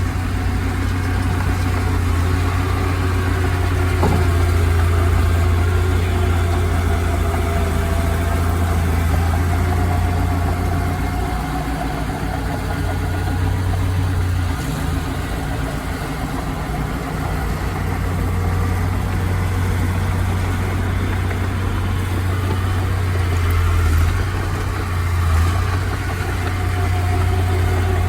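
Heavy diesel engine of land-clearing machinery running steadily at low revs, its low hum easing for a few seconds around the middle before picking up again.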